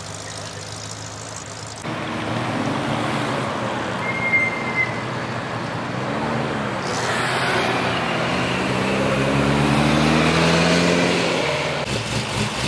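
A car engine running steadily at low revs, then several cars driving past slowly, their engine notes rising and falling over traffic noise.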